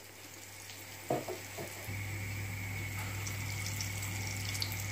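A steady low hum with a faint hiss over it, the hum coming in about two seconds in; a couple of faint knocks come just before it.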